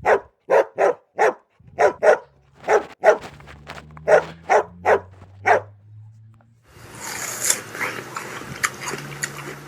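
A dog barking about a dozen times in sharp, separate barks, then from about seven seconds in a steady scratchy, scuffling noise with small clicks.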